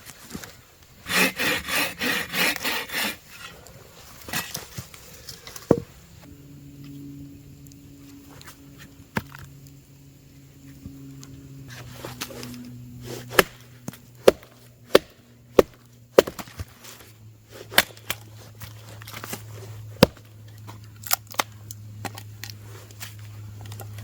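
Hand saw cutting wood with quick back-and-forth strokes for about two seconds, starting about a second in. Later comes a steady low hum, with a string of sharp single knocks.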